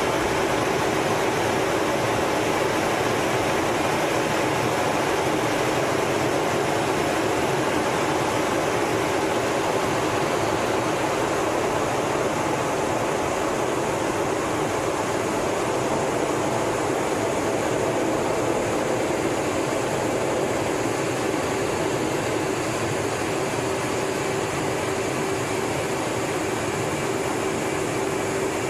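Steady jet engine and airflow noise inside an F/A-18 Hornet cockpit in flight, with a constant hum running through it.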